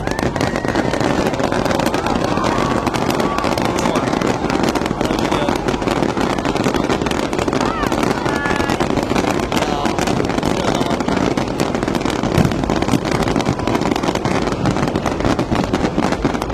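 Dense, continuous crackling of many sharp pops, loud and unbroken, with voices faintly beneath it.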